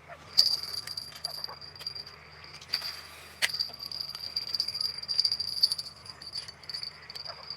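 Fishing reel whirring in a fast, high-pitched run of clicks that stops and starts, with a few sharp clicks where it begins again.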